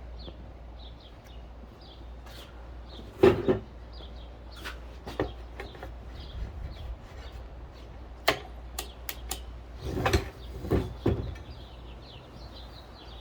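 Knocks and several sharp clicks from handling a corded circular saw and its plug, with no motor starting, because the plug has a poor connection. Birds chirp faintly in the background.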